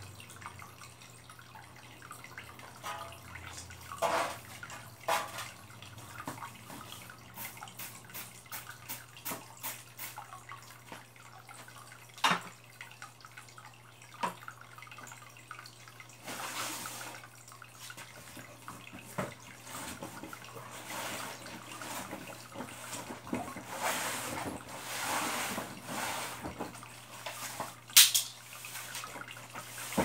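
Water dripping into an aquarium: irregular drips and small splashes, with longer stretches of splashing in the second half and one sharp, louder click near the end, over a steady low hum.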